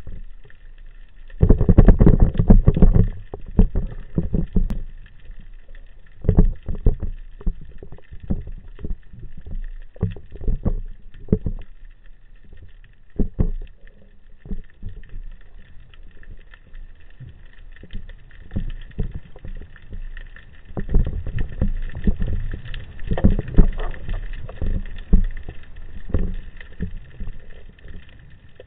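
Muffled underwater noise picked up through a speargun-mounted camera's housing: irregular knocks and thumps of moving water and gear against the housing. The knocks bunch up about two seconds in and again for several seconds past the twenty-second mark, with a faint steady hum underneath.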